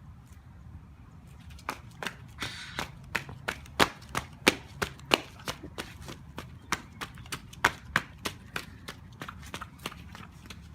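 Sharp, irregular taps and slaps, about two to three a second, from someone dancing the griddy, the steps and heel taps striking a hard floor.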